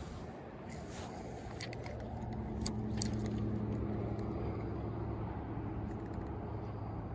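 Steady low engine hum of a motor vehicle, building up about two seconds in and then holding. A few light clicks sound over it in the second and third seconds.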